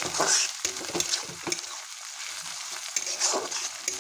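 Pigeon meat and onions frying and sizzling in a metal wok while a metal spatula stirs them, scraping the pan in quick, irregular strokes.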